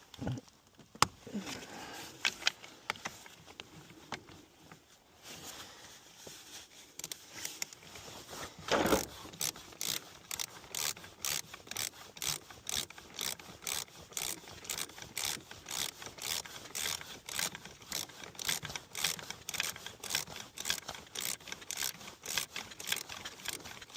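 Hand ratchet wrench working a car battery terminal nut loose in the extreme cold: a few scattered clicks and scrapes, then from about nine seconds in a steady run of ratchet clicks, two to three a second.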